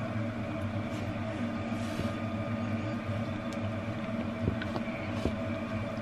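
A steady electrical or mechanical hum of several fixed tones, with faint scraping and a couple of light knocks from a silicone spatula stirring flour and egg in a plastic mixing bowl.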